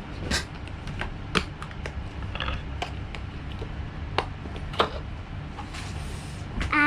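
Scattered sharp clicks and taps of small toys being handled, about eight at irregular intervals, over a low steady hum.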